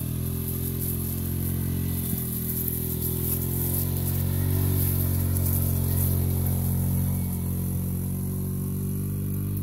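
Small engine of a youth ATV running at a steady, low speed under way, its drone wavering a little in pitch and growing somewhat louder in the middle.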